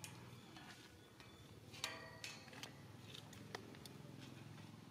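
A few faint, sharp clicks and taps, the loudest about two seconds in with a brief ringing tone, over a low steady hum.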